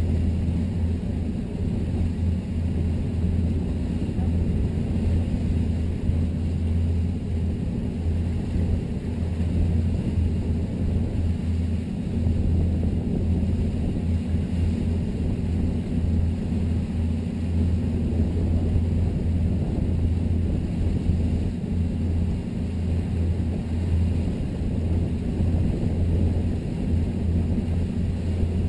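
Steady low rumble of a 1998 Sea Ray 330 Sundancer cruiser running under power at an even cruising speed, engines and passage through the water blended into one drone with no changes in pace.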